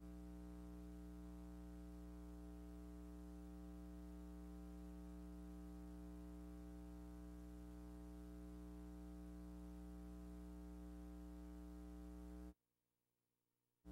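Faint, steady electrical hum with many overtones on an otherwise silent soundtrack. It cuts out to dead silence about a second before the end.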